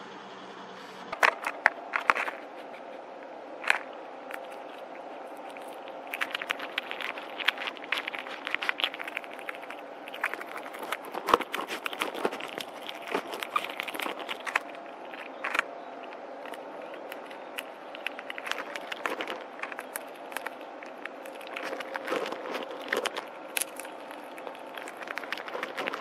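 Gray squirrel cracking and chewing seeds and rummaging through the seed mix on a feeder tray: close, irregular crackles, crunches and scrapes starting about a second in, over steady background noise.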